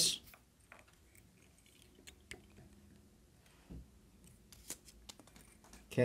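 Faint, scattered clicks and soft rustles of hands working tying materials on a hook held in a rotary fly-tying vise.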